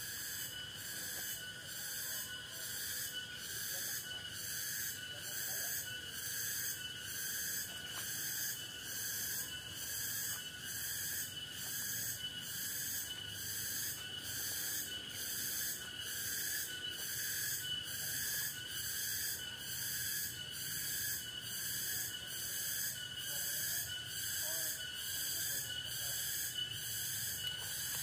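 Chorus of forest insects: a high buzz that swells and fades evenly a little more than once a second, over several steady shrill trilling tones.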